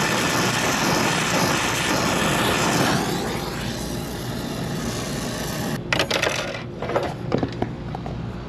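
Brazing torch flame rushing steadily, easing off about three seconds in, followed by a series of light metallic clinks and taps.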